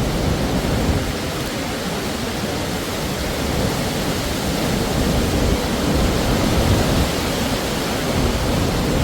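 Strong gusting wind buffeting the microphone, a loud steady rush with a rumbling, fluttering low end.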